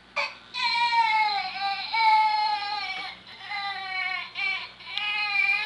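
Baby making weird, high-pitched vocal noises: a short squeak, then long held cries with a wavering pitch, broken by brief pauses.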